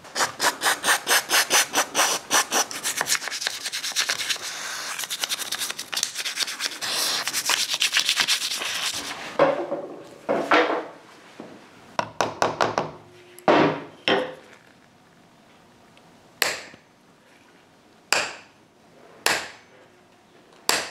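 Toothbrush scrubbing the metal engine case of a Harley Sportster in quick back-and-forth strokes, about four a second, for the first nine seconds or so. After that come about ten separate short scrubbing or scraping sounds, with quiet between them.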